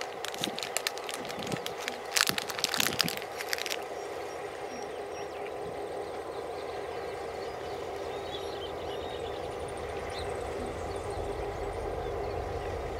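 Diesel freight locomotive approaching at a distance: a steady engine drone, with a low rumble building near the end as it draws closer. Sharp crackling clicks over the first few seconds.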